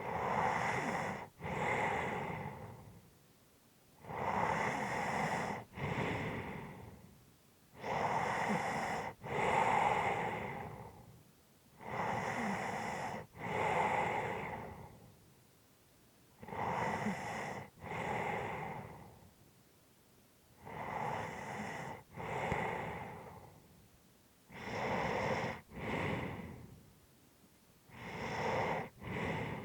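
A resting person breathing heavily and slowly, about one breath every four seconds, each a loud breath in and out with a short break between them and a quiet pause before the next.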